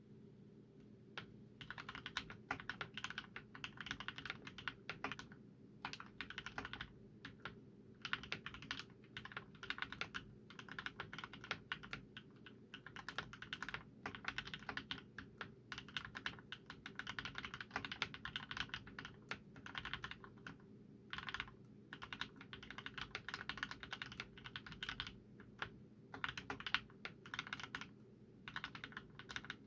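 Typing on a COX Monarch mechanical keyboard with fully lubed Gateron Black linear switches and PBT keycaps: quick runs of keystrokes broken by short pauses.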